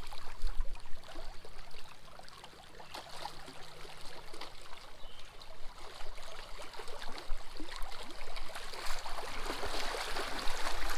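Small waves lapping and splashing irregularly against the rocks of a riprap shoreline.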